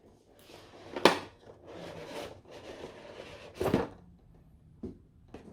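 Packaging being handled while a microphone box is unpacked: a sharp knock about a second in, then rustling and scraping, another knock near four seconds, and a small click near the end.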